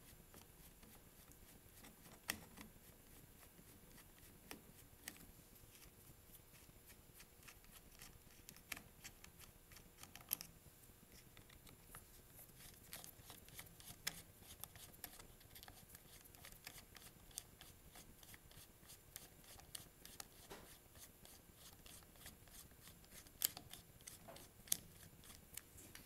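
Faint, scattered small clicks and scrapes of a hand screwdriver turning out the carburetor mounting screws on a string trimmer, with light handling of the plastic air-filter housing, over a near-silent room.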